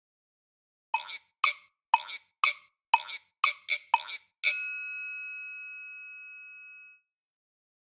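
Edited-in comedy sound effect: eight quick sharp taps, coming slightly faster toward the end, then a single bell chime that rings out and fades over about two and a half seconds.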